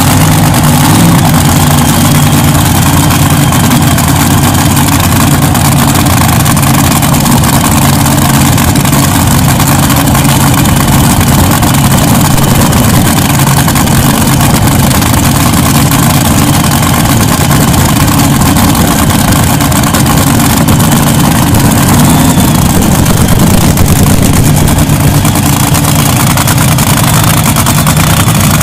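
Nostalgia top fuel dragster engine, just started on alcohol, idling very loudly and steadily in the pits.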